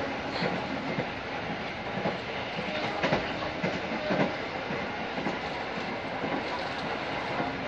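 Passenger train running at speed, heard from inside the coach: a steady rumble of wheels on rails with a few louder clacks and knocks over the rail joints.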